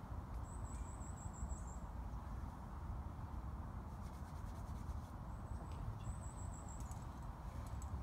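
Steady low outdoor rumble with a high-pitched rapid trill about half a second in and again twice between five and seven seconds in.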